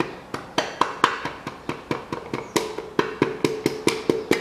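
A hammer lightly and repeatedly taps a piston down through a ring compressor into its cylinder bore in a Toyota Caldina 2.0 engine block. The taps come about four to five a second, each a short metallic knock with a brief ring. This is the piston and its oiled rings being eased past the compressor band into the bore.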